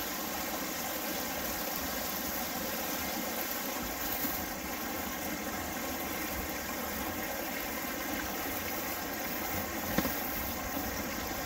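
Steady rushing of a shallow rocky creek flowing over stones, with one brief knock about ten seconds in.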